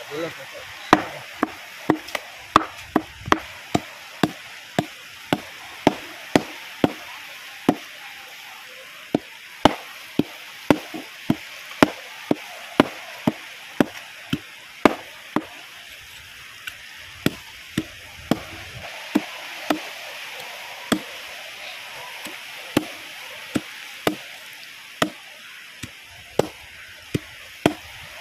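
Meat cleaver striking a giant grouper on a wooden board, sharp chops about one to two a second with a couple of short pauses along the way.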